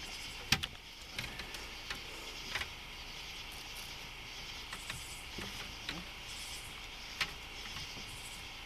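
Steady high chorus of night insects, with a few sharp knocks and clicks from handling on the boat, the loudest about half a second in and another near the end.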